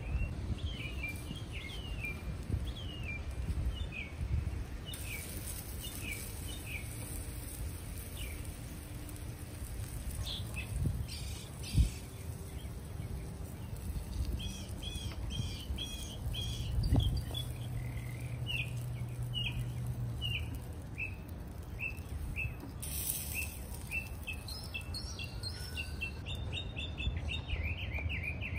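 Small birds chirping, a long run of short high chirps repeating through the whole stretch, over a low steady rumble, with one knock about twelve seconds in.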